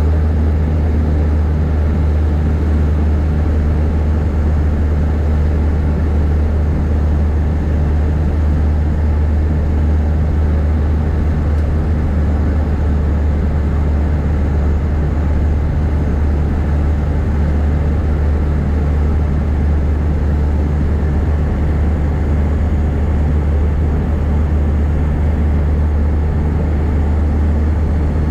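Cabin noise of a De Havilland Canada DHC-6-300 Twin Otter in flight: its Pratt & Whitney PT6A turboprop engines and propellers give a steady, loud, low drone, heard from inside the cabin.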